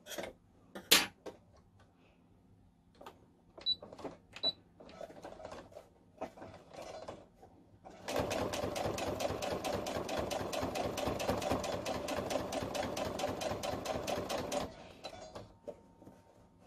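A few light clicks and taps, then a sewing machine edge-stitching cotton fabric, running at a steady, rapid stitching rhythm for about six seconds before stopping.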